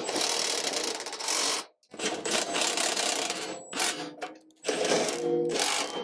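Cordless impact driver running in three bursts of a second or two each, driving bolts into a mower's engine housing.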